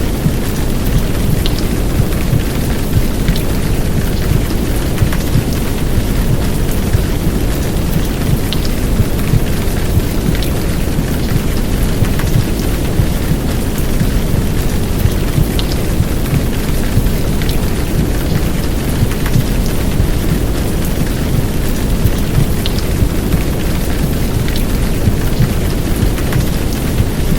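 Heavy downpour of rain layered with womb-sound white noise for soothing a baby: a steady, unbroken hiss, heaviest in the deep end, with a few sharp drop ticks scattered through it.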